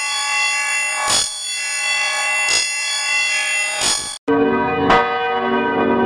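Church bell recording run through an audio effect that leaves it thin and high-pitched, struck about every one and a half seconds. After a sudden cut just past four seconds in, the bell comes back lower and fuller.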